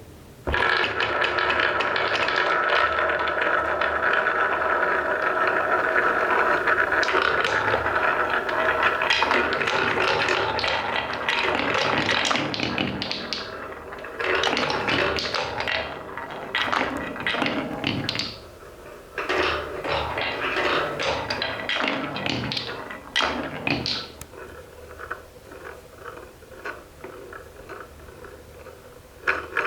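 Wooden balls running down a wooden marble run: a dense, steady rolling rumble with a faint hum of tones, breaking up after about ten seconds into bursts of quick clacks and taps, and thinning to scattered clicks near the end.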